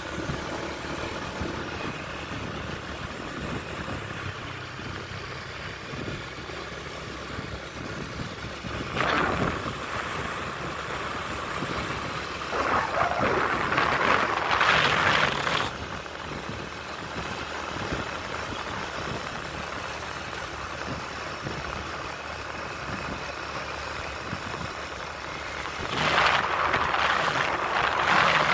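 Steady running and road noise of a moving vehicle, heard from on board. Louder rushing swells of noise come about nine seconds in, for a few seconds around the middle, and again near the end.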